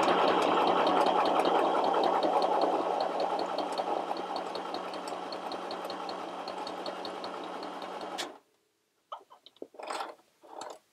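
FHSM 505 mini sewing machine sewing a blind hem stitch: its small motor hums under a regular light ticking of the needle mechanism, growing gradually quieter, then it stops suddenly about eight seconds in. A few short clicks and rustles follow as the fabric is drawn out from under the foot.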